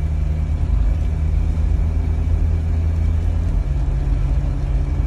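Toyota Innova's engine and road noise heard from inside the cabin while driving: a steady low drone over tyre noise on a wet road. The engine note shifts slightly about three and a half seconds in.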